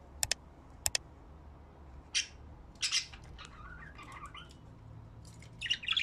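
Budgerigars calling in a cage: short sharp chirps, two near the start and two more about a second in, single chirps at about two and three seconds, a softer warbling chatter in the middle, and a quick cluster of chirps near the end.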